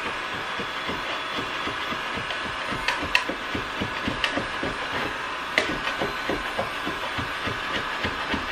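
Electric power tool running steadily with a high whine, as old paint is worked off a staircase, with irregular scraping strokes and a few sharper knocks.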